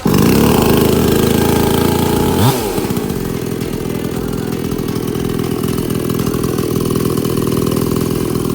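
Petrol chainsaw's two-stroke engine catching and running steadily and loudly. About two and a half seconds in, its speed dips and comes back up, then it settles into a steady run.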